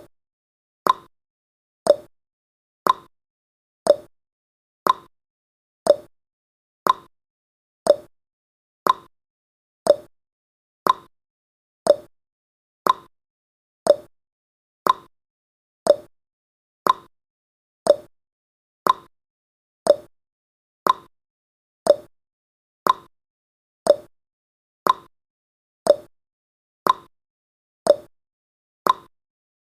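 Clock tick-tock sound effect of a countdown timer: one short, sharp tick every second, alternating between a higher and a lower pitch.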